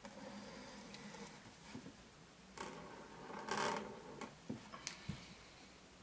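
White paint marker's tip scratching across a black-painted panel as a curved line is drawn, loudest for a moment a little past halfway, followed by a few light clicks.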